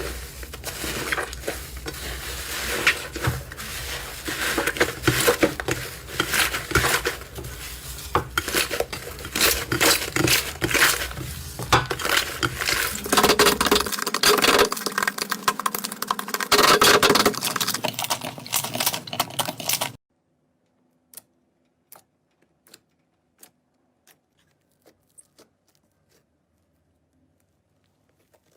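Slime being squeezed and pressed by hand, making dense crackling with many small clicks and snaps. After about twenty seconds it cuts off suddenly to near quiet, with only a few scattered clicks.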